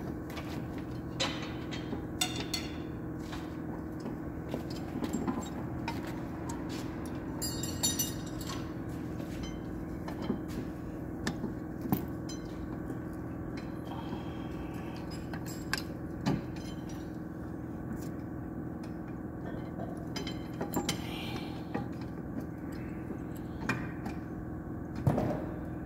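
Scattered metallic clinks and clicks as new rear drum-brake shoes, return springs and adjuster are fitted onto a Kia Pegas backing plate by hand, over a steady low hum.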